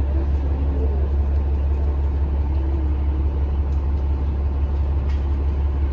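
Steady low rumble of a city bus under way, heard from inside the passenger cabin.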